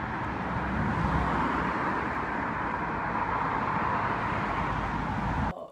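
Steady road traffic noise from passing cars, an even wash of sound with a low rumble, which cuts off abruptly near the end.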